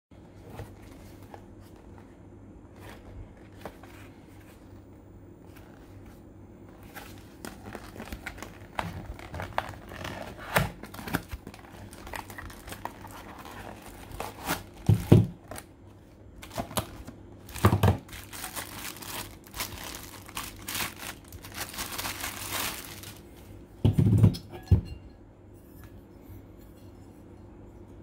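Unboxing by hand: a cardboard box handled and opened with scattered clicks and knocks, then a plastic bag crinkling as a stainless steel ashtray is pulled out of it, with a few loud thumps along the way.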